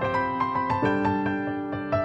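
Soft background piano music: single notes and chords struck several times a second and left to ring.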